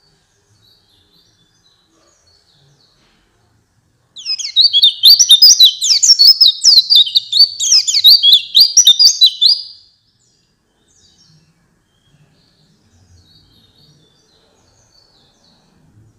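White-eye (pleci) singing a loud, fast run of rapid high warbling notes, starting about four seconds in and lasting about six seconds. Faint soft chirps come before and after it.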